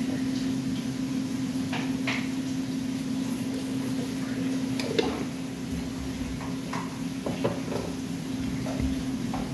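Light clicks and knocks of a glass honey jar, its lid and a plastic tub being handled on a kitchen worktop, the sharpest knock about five seconds in, over a steady low hum.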